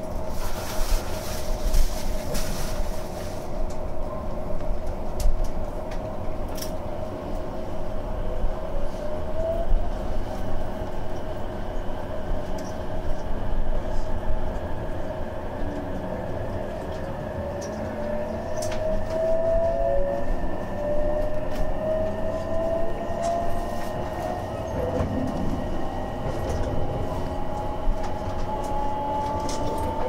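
Inside a JR West 287 series electric limited express pulling away: the traction motors and their inverter give a whine that begins to climb in pitch after several seconds and keeps rising as the train speeds up. Under it is a steady running hum, with occasional clicks of the wheels.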